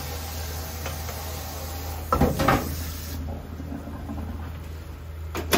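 Frying pan of oil and pasta water simmering on a gas hob with a steady hiss that cuts off sharply about three seconds in, with a couple of clattering knocks of kitchenware just before, and another sharp knock near the end.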